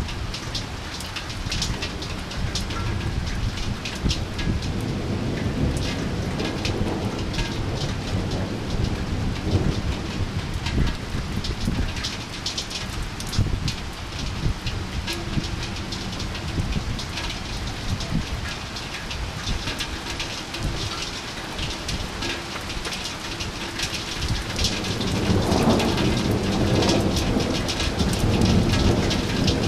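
Heavy rain falling, with a dense patter of close drops over a steady low rumble. A deeper rumble of thunder swells near the end.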